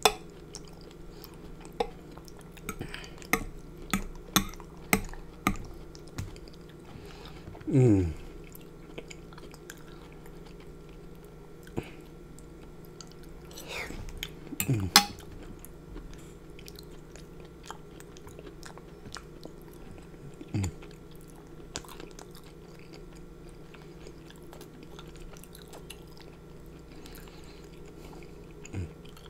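Close-up chewing and mouth sounds of a person eating creamy seafood pasta-style food, with a run of sharp clicks over the first few seconds as a fork works in a glass baking dish. Two short hums falling in pitch come at about eight and fifteen seconds. The second half is quieter, with only a few single clicks over a low steady hum.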